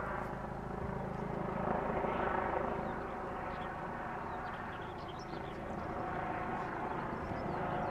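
A steady engine drone at a constant pitch, a little louder around two seconds in.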